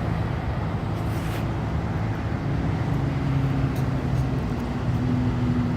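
Diesel engine of a large excavator running steadily while it digs, a low drone with a slight shift in pitch a couple of seconds in.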